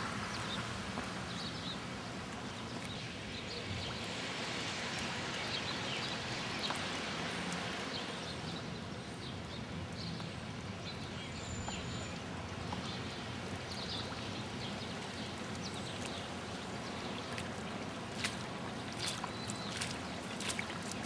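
Steady rush of flowing floodwater, with a few short high chirps here and there and several sharp clicks near the end.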